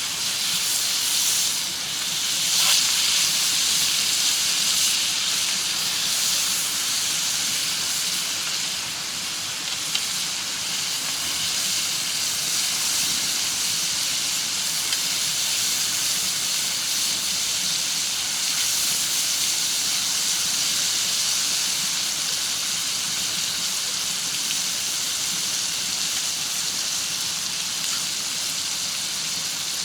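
Steady sizzling hiss of food cooking over an open fire, with a couple of faint crackles.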